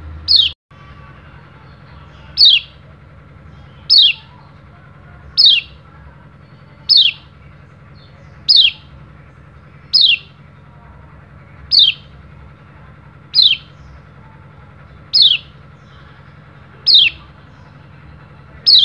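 White-eye (pleci) giving single sharp 'ciak' calls, each a quick downward-sliding chirp, repeated evenly about once every one and a half seconds, twelve in all.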